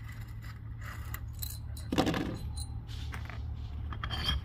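Small metal clinks and clicks as a hex key backs out the screws of a rod-holster mount's top track and the track piece is taken off. There is a louder clatter about two seconds in and a short ringing clink near the end.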